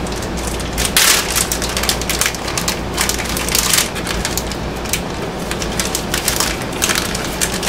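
Crackling, crinkling rustle of food packaging being handled and opened, with louder crinkles about one second and three and a half seconds in.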